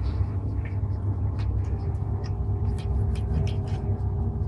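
Knife and fork clicking and scraping against a ceramic plate while cutting a steak, a quick run of clicks in the second half, over a steady low rumble.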